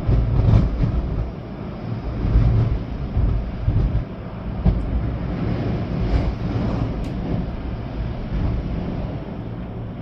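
Storm wind gusting hard with rain, buffeting the microphone with a deep rumble that swells and eases. A few small ticks come through, the sharpest one about seven seconds in.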